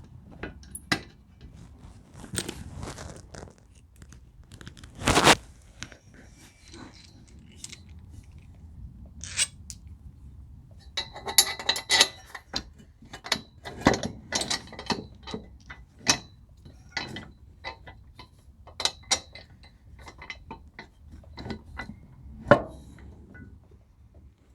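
Small metal hardware being handled: carriage bolts, washers and plastic spacers clinking and clattering as they are fitted, with scattered knocks and a loud knock about five seconds in and again near the end.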